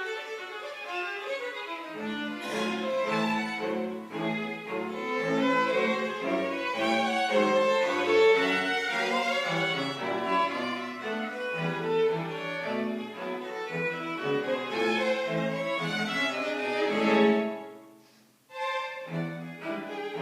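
Live string quartet of two violins, viola and cello playing. Low cello notes join about two seconds in, and near the end the playing swells, breaks off for a moment and then resumes.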